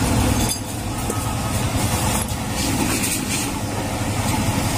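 Steady low rumble of motor vehicles running close by, with a few light clicks as the plastic sealing cap strip is pressed onto a new motorcycle battery.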